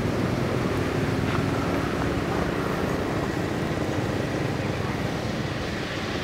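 Steady low rumbling background noise with a faint hum, even in level throughout.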